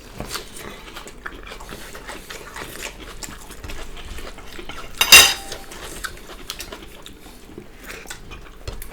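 Spoons and dishes clinking and tapping during a meal. About five seconds in comes one short, loud, high-pitched yelp from a puppy.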